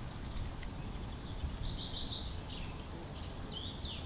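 A small songbird singing a quick run of high chirps and short rising and falling whistled notes, starting about a second in, over steady low outdoor background noise.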